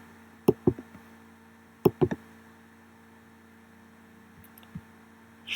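Computer clicks, four sharp ones in two quick pairs about a second and a half apart, made while clicking through a right-click menu, with a fainter click near the end. Under them runs a steady low electrical hum.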